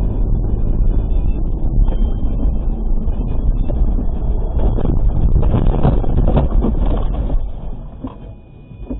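Dashcam recording of a Toyota's low road and wind rumble as it drives on a snow-covered road. About five seconds in, a spell of louder irregular knocks and scraping comes as the car slides off the road into deep snow. The noise then dies down as the car comes to a stop.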